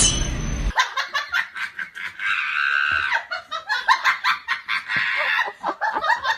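A person laughing in quick, high-pitched bursts, after a few notes of music that cut off under a second in.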